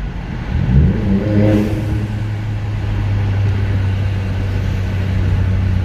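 Ford Fiesta Mk8's 1-litre three-cylinder EcoBoost turbo engine heard from inside the cabin, rising in pitch as the car accelerates about a second in, then running at a steady pitch.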